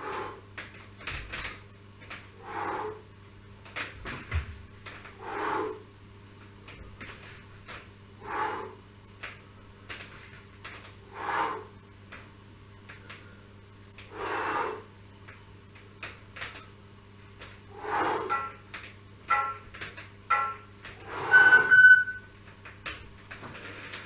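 A man's hard exhalations while exercising, one with each pull on the straps, about every three seconds; near the end they come quicker and the last is the loudest, with a brief strained, pitched note. A steady low electrical hum runs underneath.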